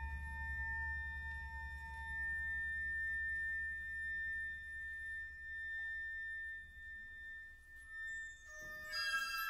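Orchestra playing a quiet, held, pure-sounding high tone with a few fainter sustained pitches over a low rumble that fades away in the first few seconds. Near the end, several bright high notes come in.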